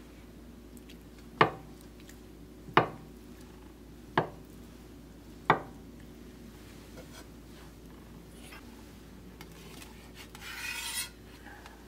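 Santoku kitchen knife slicing down through a block of tofu and knocking on a wooden cutting board, four sharp chops about a second and a half apart. A short scrape follows near the end.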